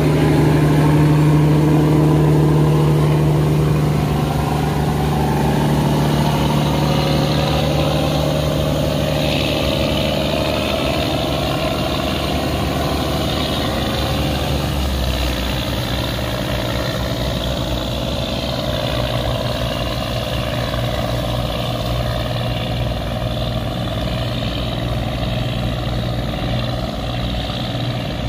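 Engine of a river cargo boat running steadily. Its low note drops to a lower pitch about halfway through.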